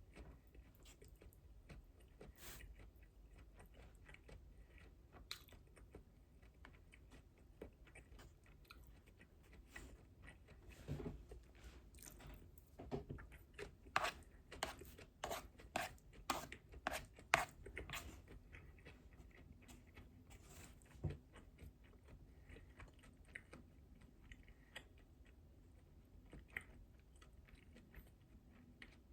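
Close-up chewing and crunching of food. It is faint and sporadic, with a run of sharp, crisp crunches about halfway through.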